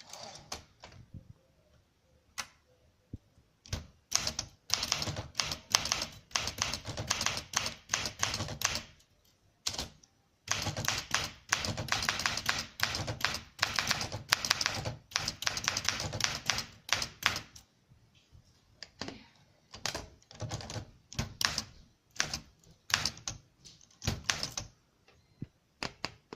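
1964 Olympia SM9 manual typewriter being typed on: a few scattered key strikes, then two fast, steady runs of typing with a brief pause between them. Near the end come slower, spaced groups of strikes.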